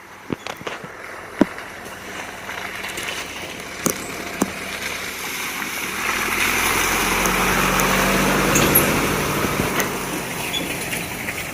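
A motor vehicle's engine running, with scattered knocks and rattles; it grows louder about halfway through and eases off again near the end.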